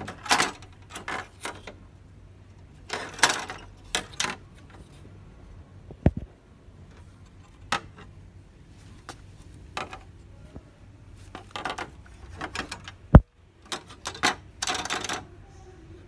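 Handling noise of a printer's main circuit board being moved about and set against the printer's metal chassis: irregular rattling and clicking, with a few sharp knocks, the loudest late on.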